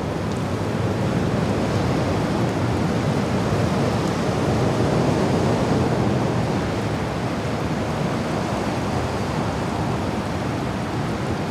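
Wind sound effect: a steady, full rushing of wind that swells a little about halfway through and then eases back.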